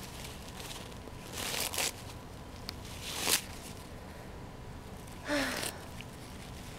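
Paper towels rustling and tearing as a cat bites and claws at a shredded roll, in a few short bursts, the loudest about halfway through.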